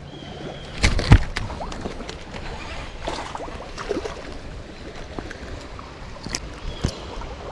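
River water sloshing and splashing, with scattered clicks and knocks; the loudest knocks come about a second in.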